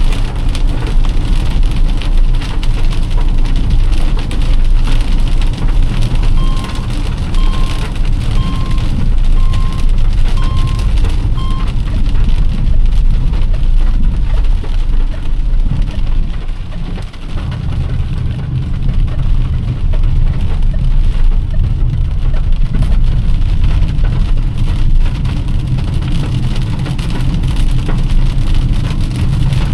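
Heavy rain falling steadily on a moving car, over a low rumble of road and engine noise. Partway through comes a run of six short, evenly spaced beeps, about one a second.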